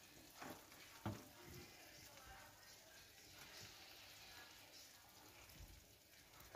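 Faint sizzling of a chicken-and-vegetable tray roasting in a hot oven, with two light knocks about half a second and a second in.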